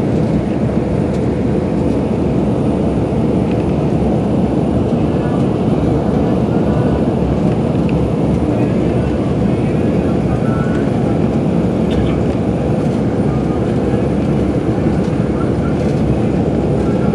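Steady low rumble of a coach bus's engine and tyres on the highway, heard from inside the passenger cabin.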